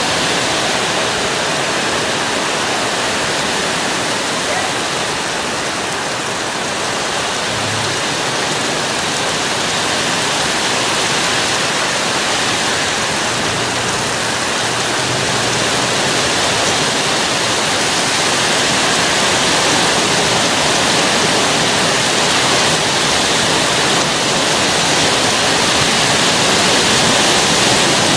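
Heavy thunderstorm rain pouring steadily, a dense even hiss that grows somewhat louder over the second half.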